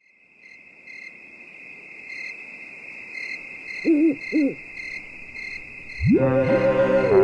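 Night ambience sound effect: crickets chirping steadily, with an owl hooting twice about four seconds in. Music comes in near the end with a rising swell.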